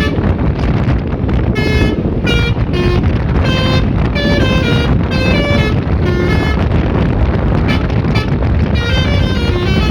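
Multi-tone 'telolet' bus horn playing a quick tune of short notes that step up and down in pitch, over a steady low rumble.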